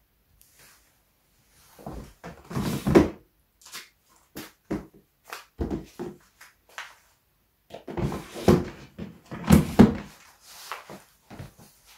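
Plastic storage drawers being slid open and shut and rummaged through: irregular scrapes and knocks, loudest about three seconds in and again near ten seconds.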